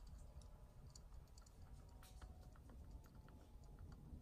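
Faint clicks of a Samsung TV's control-module power button being pressed several times, over near-silent room tone; the set stays in standby and does not turn on.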